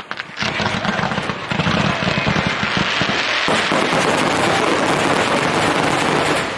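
Aerial fireworks going off in rapid succession: many sharp cracks and thuds blending into a continuous crackling din, starting abruptly about half a second in.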